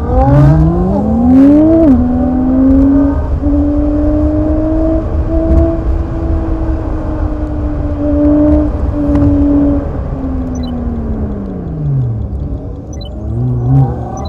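Car engine heard from inside the cabin, revving up with a gear change at about two seconds, then holding a steady pitch while cruising. It drops away as the car slows about ten seconds in and picks up again near the end, over steady road rumble.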